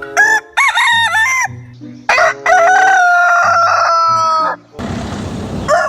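Rooster crowing: a few short, bending notes, then one long held note of about two seconds. About a second of noisy hiss follows near the end, over a quiet music bed.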